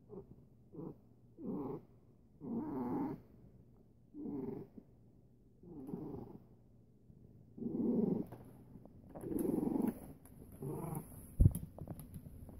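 A long-haired colourpoint cat purring while being stroked, the purr rising and falling with each breath, about one breath every second and a half. Near the end there is a single sharp knock, followed by a few light clicks.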